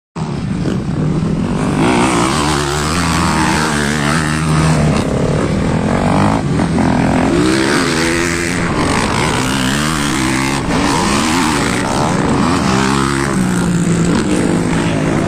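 Motocross dirt bikes racing on the track, their engines revving hard, with the pitch climbing and dropping over and over.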